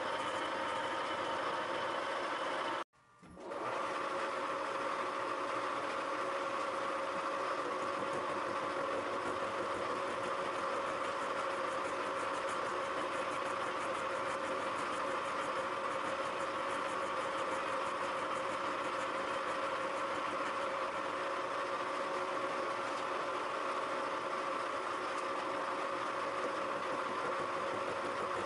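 Milling machine running steadily as a module 2 involute gear cutter gashes the teeth of a worm wheel, a constant mechanical hum with a steady whine in it. The sound cuts out for a moment about three seconds in.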